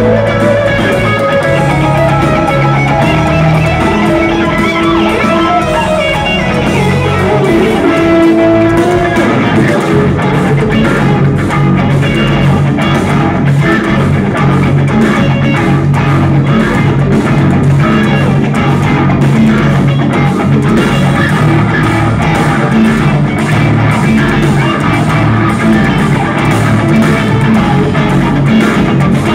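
Live instrumental progressive metal: electric guitars playing intricate lines over bass guitar and drums, heard loud from the audience in a theatre. A guitar melody stands out over the first several seconds.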